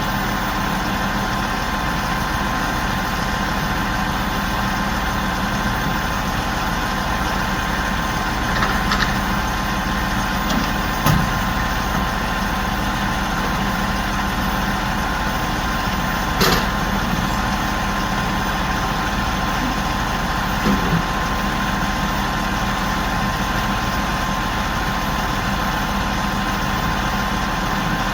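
A large crane's engine running steadily at idle, a constant mechanical drone, with a few brief knocks about a third and halfway through.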